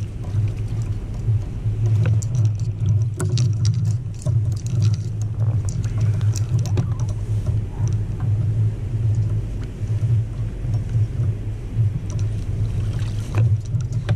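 A steady low rumble, with scattered light clicks and knocks from handling fishing gear in a boat.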